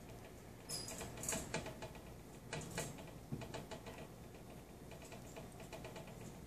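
A pet kinkajou scrambling about as it plays: irregular light taps and scratches, busiest about one and three seconds in.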